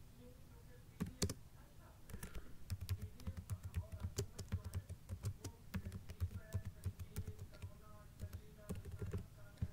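Typing on a computer keyboard: a few sharp keystrokes about a second in, then a quick, steady run of key clicks from about two and a half seconds in until near the end.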